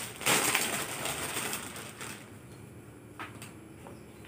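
Plastic bag crinkling and rustling as a T-shirt is pulled out of it, dying away after about two seconds, then a couple of faint taps.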